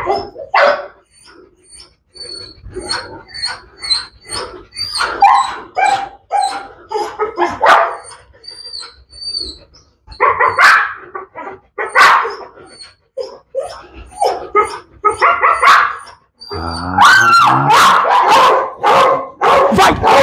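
Pit bull barking repeatedly, most continuously over the last few seconds.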